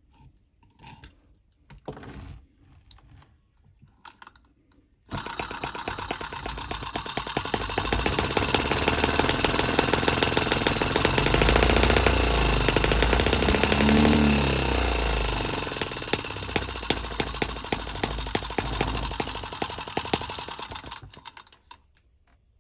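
A few light knocks and taps, then the M17B scale model single-cylinder engine starts suddenly about five seconds in. It runs with a rapid, even firing beat that grows louder through the middle, eases off later and cuts out shortly before the end.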